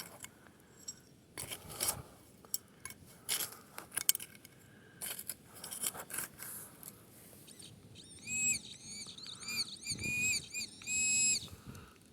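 Scattered clicks and scrapes of digging in the soil. From about eight seconds in, a metal detector sounds a run of short warbling beeps and then one longer steady tone, signalling buried metal.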